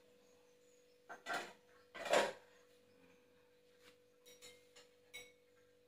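Metal cooking utensil clattering and scraping against a pan on a gas stove, two loud strokes about a second apart, then a few light clicks, over a faint steady hum.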